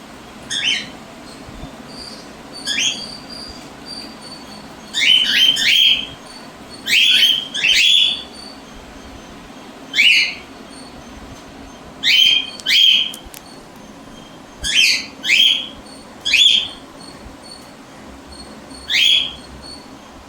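Cockatiels giving a dozen or so short, loud calls that fall in pitch, several coming in quick pairs or clusters.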